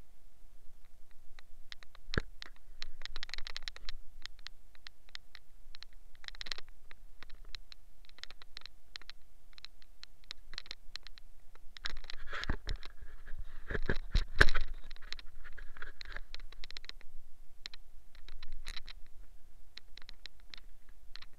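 A tyre being hand-washed with a soapy sponge: irregular scrubbing and scratching with many small clicks, a sharp knock about two seconds in, and a burst of louder knocks and handling noise a little past the middle.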